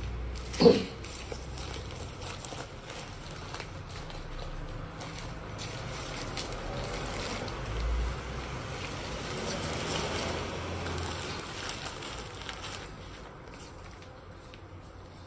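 Rustling and crinkling of a Matador FreeRain32 packable backpack's thin waterproof nylon as it is shaken open and handled, with one short loud sound about a second in; the rustling fades out near the end.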